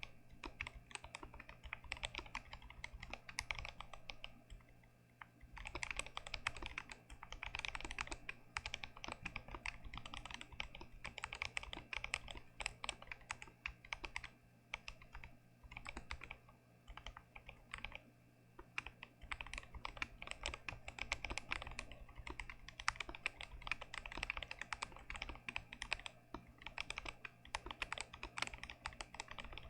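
Continuous typing on a stock Glorious GMMK Pro mechanical keyboard with Gazzew Boba U4T tactile switches: a dense stream of keystroke clacks, with a brief pause about five seconds in.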